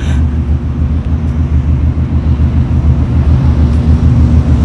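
Volkswagen Golf R32's 3.2-litre VR6 engine idling through an aftermarket DP exhaust, a steady low exhaust note that grows slightly louder near the end.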